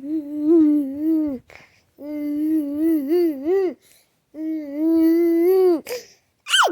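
A 13-month-old baby boy babbling: three long drawn-out vowel sounds with a wavering pitch, then a short high squeal that slides sharply down near the end.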